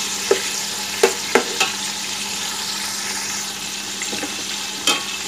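Chicken pieces frying in hot oil with fried onions: a steady sizzle, broken by a few sharp clicks of a metal slotted spoon knocking and scraping against the metal pot as it stirs.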